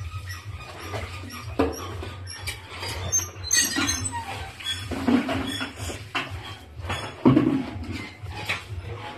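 A baby's short squeals and vocal noises, the loudest about seven seconds in, over a steady low hum.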